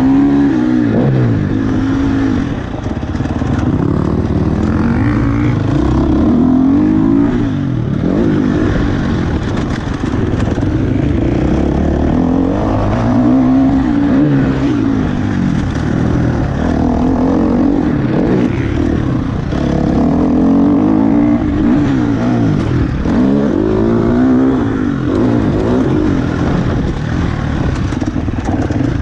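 KTM 350 SX-F motocross bike's single-cylinder four-stroke engine being ridden hard, its pitch climbing and dropping every few seconds as the throttle is opened and shut.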